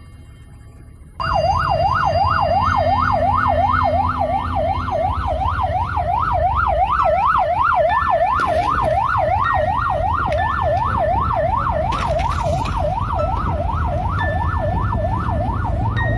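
An emergency vehicle siren in a fast yelp, its pitch sweeping up and down about three times a second, starting about a second in. Underneath is a steady low rumble of road traffic.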